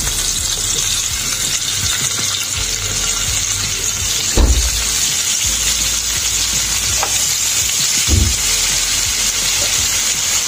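Marinated mutton chops sizzling in hot oil on a grill pan, a steady frying hiss. Two dull knocks about four and eight seconds in as more chops are set down in the pan.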